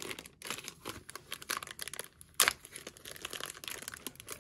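Clear plastic packaging bag crinkling and crackling as hands pull and work it open, the bag being stiff to open, with one sharp, loud crackle about two and a half seconds in.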